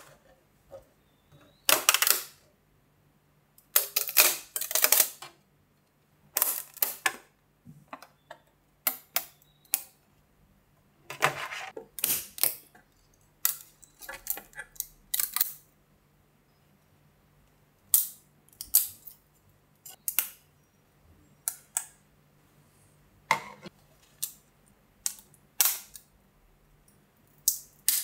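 Irregular sharp clicks and snaps of hard plastic, some coming in quick clusters: support material being broken away from a freshly printed ABS part.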